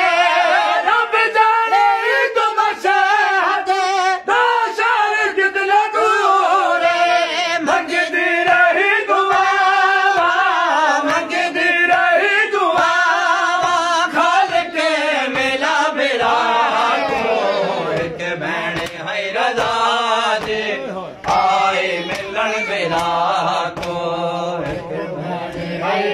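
A group of voices chanting a Shia mourning lament (nauha) in a continuous melody, with sharp slaps of hands striking bare chests (matam) running through the chant.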